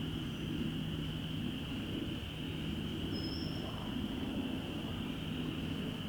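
Outdoor ambience: a steady high-pitched chorus over a low steady rumble, with one short high bird whistle about three seconds in.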